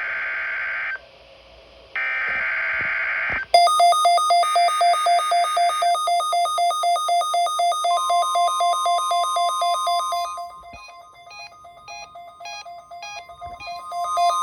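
NOAA Weather Radio Specific Area Message Encoding (SAME) header: three buzzy digital data bursts, each about a second long, marking the start of the Required Weekly Test. From about three seconds in, rapid electronic alert beeping pulses several times a second. About eight seconds in, a steady high warning alarm tone joins it, and the beeping grows quieter and changes pattern a couple of seconds later.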